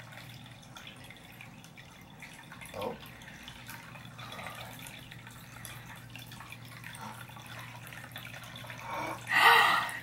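Ceramic cat drinking fountain trickling: a thin stream of water pouring steadily from the spout into the filled bowl, over a low steady hum from its pump. A short louder noise comes just before the end.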